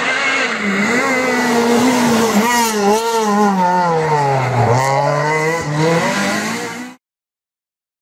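Renault Clio R3 Maxi rally car's 2.0-litre four-cylinder engine at high revs, going past close by. Its pitch dips and climbs with each gear change, drops low as the car slows into a tight corner about four seconds in, then climbs again as it pulls away. The sound cuts off suddenly near the end.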